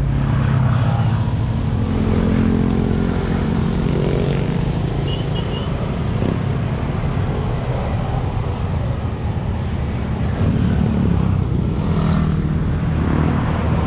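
Motorcycles riding past on a highway one after another, their engines swelling as each goes by, loudest just after the start and again near the end, over a steady drone of road traffic.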